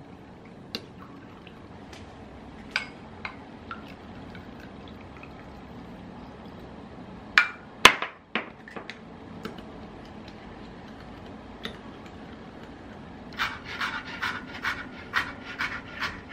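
Utensil stirring beaten eggs in a glass measuring cup, with light scattered clinks, then two sharp glass knocks about halfway through, the loudest sounds. From about three seconds before the end, a chef's knife chopping carrot on a cutting board, about three strokes a second.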